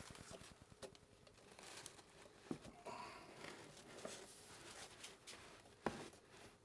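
Near silence with a few faint, short knocks, the clearest about two and a half seconds and six seconds in.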